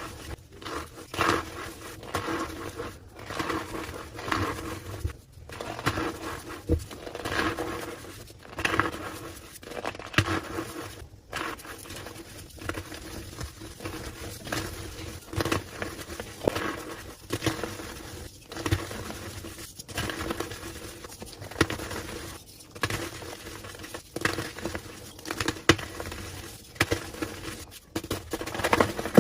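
Homemade gym chalk slabs being crushed, crumbling and squeaking in irregular crunches, about one or two a second.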